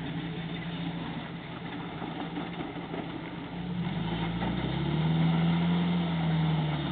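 Suzuki Sidekick 4x4 engine running at low revs, revving up about halfway through, holding the higher revs for a couple of seconds, then easing back near the end.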